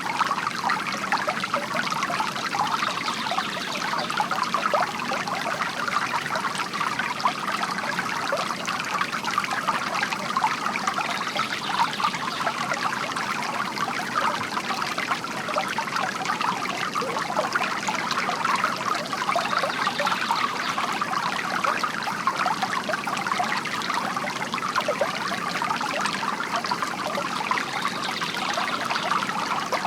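Water from a bamboo garden fountain trickling and splashing steadily into a basin.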